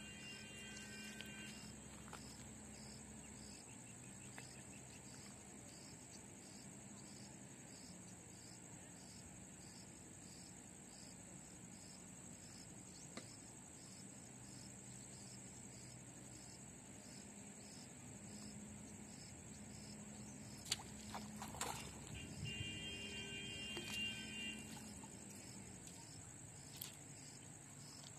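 Crickets or similar insects chirring steadily in a high, continuous pitch at the water's edge. A few sharp clicks sound about three-quarters of the way through, and a short pitched call with several tones is heard at the start and again shortly after the clicks.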